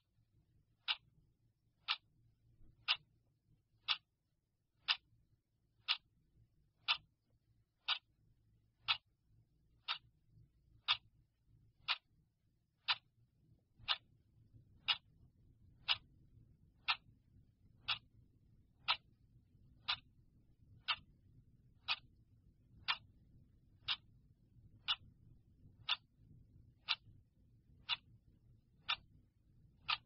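Clock ticking steadily, one sharp tick each second.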